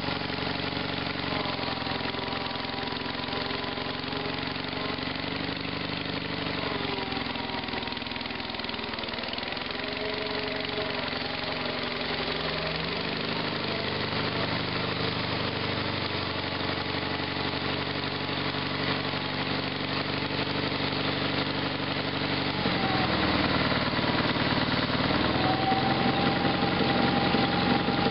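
Sears GT/18 hydrostatic garden tractor's engine running steadily while the tractor is driven. Its note shifts in pitch partway through, then rises and gets louder about four-fifths of the way in.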